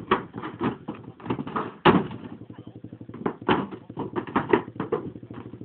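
A 125 cc ATV engine idling, with irregular knocks and clatter on top and one sharp bang about two seconds in.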